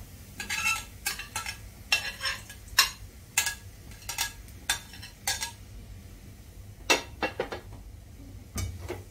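Metal slotted spatula clinking and scraping against a stainless steel pan as chopped capsicum, tomato and green chilli are pushed in off a plate: a quick run of sharp clinks for the first five seconds or so, then a short lull and a few more clinks.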